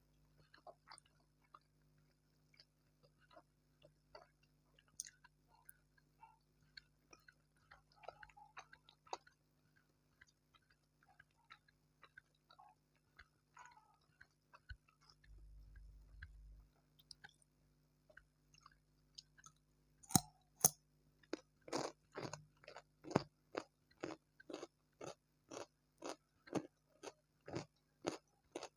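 Close-miked chewing of fried noodles and tempura. For about the first twenty seconds there are soft, scattered chewing and mouth sounds. Then comes steady crunchy chewing at about two crunches a second.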